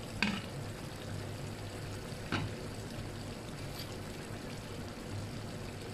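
Chicken and potato curry simmering in a clay pot, a steady bubbling hiss. The glass lid clinks as it is lifted off just after the start, and a spoon knocks against the pot about two seconds in.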